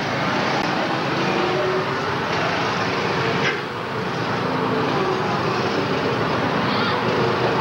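Small go-kart engines running around a track: a steady, noisy drone with a faint wavering engine note.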